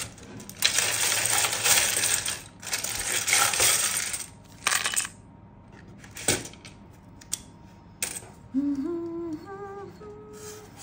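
A handful of small plastic letter tiles and metal charms shaken together, rattling in two long bursts, then single clicks as pieces land on the cards. A few hummed notes stepping upward near the end.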